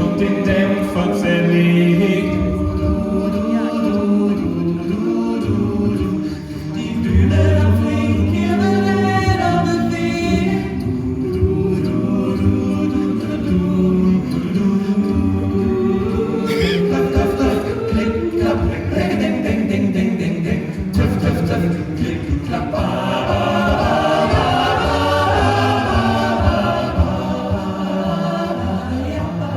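A cappella vocal group singing in harmony: several voices only, no instruments.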